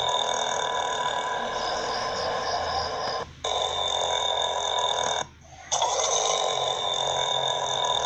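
A person burping in long, drawn-out belches that run almost without pause, broken by a brief gap about three seconds in and a longer one about five seconds in.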